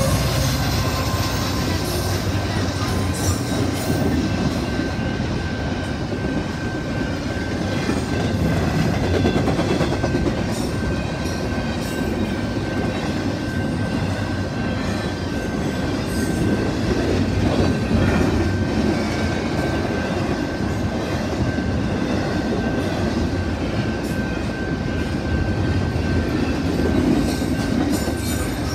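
Canadian Pacific double-stack intermodal freight train passing at speed: a steady rumble and clatter of wheels on the rails, with a thin steady high tone over it.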